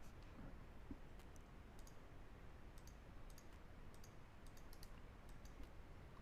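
Faint, irregular computer mouse clicks over quiet room tone.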